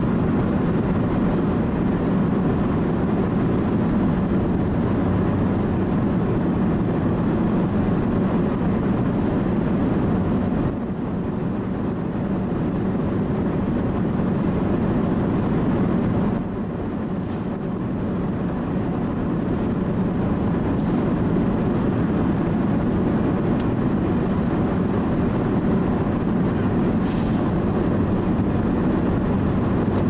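Steady low rumble of road and engine noise heard inside a moving car's cabin at cruising speed.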